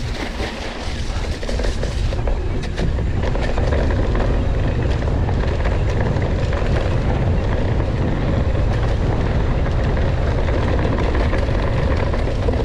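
Mountain bike riding fast down a dirt trail: a steady rumble of tyres on dirt and wind on the microphone, getting louder about two seconds in as speed builds. A few short clicks and rattles sound in the first few seconds.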